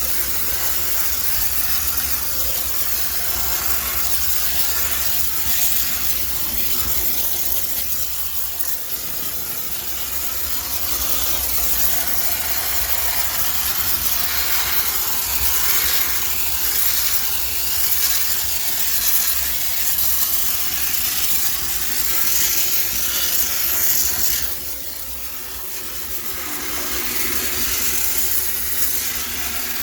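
High-pressure steam cleaner jetting steam in a steady hiss over a low hum. About twenty-five seconds in it drops off for a couple of seconds, then builds again.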